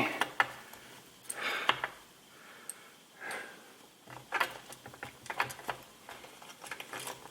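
Light clicks and taps of a bottom bracket tool and greasy bicycle bottom bracket parts being handled, with a couple of soft rubbing swishes.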